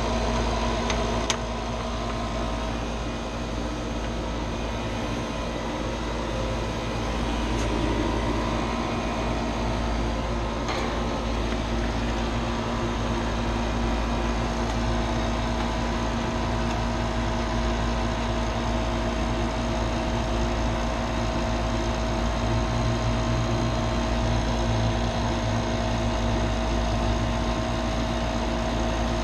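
HVAC equipment running steadily: a constant mechanical hum with a steady tone. There is one sharp click about a second in, and a higher tone grows clearer about halfway through.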